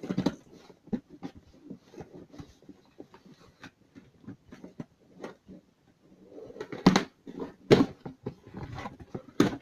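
Cardboard box and plastic packaging being handled and pulled open, with scratchy rustling and clicks throughout. Louder sharp rustles or knocks come about seven and eight seconds in and again near the end.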